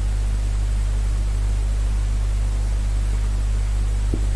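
Steady electrical mains hum with a layer of hiss, and a faint click about four seconds in.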